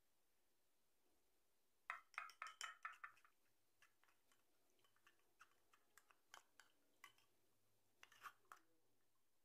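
Faint metallic clinks and scraping of a metal spoon against a stainless steel strainer as it works blended mint and lemon pulp to press the juice through: a quick run of clinks about two seconds in, scattered single clicks after, and another short run near the end.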